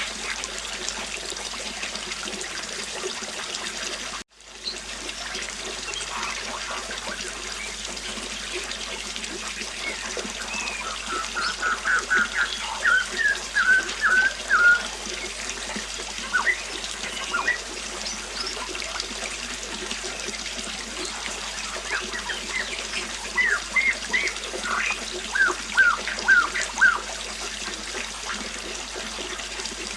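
River water flowing steadily, with a bird giving two runs of quick, short chirping notes, one near the middle and one later on; these are the loudest sounds. About four seconds in the sound cuts out for a moment, then returns.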